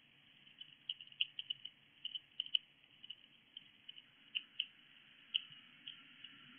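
A hedgehog foraging at a dish of dry food and over pebbles. Irregular small clicks and crunches, closest together in the first couple of seconds, then thinning out.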